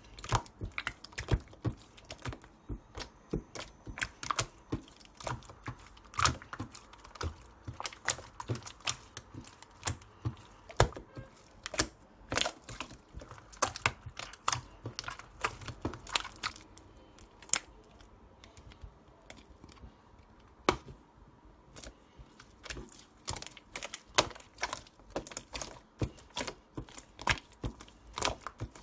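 A large slime being squished, folded and poked by hand, giving irregular sharp clicks and pops, several a second.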